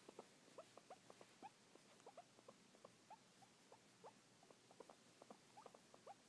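Guinea pig making faint, short rising squeaks, several a second in an irregular stream.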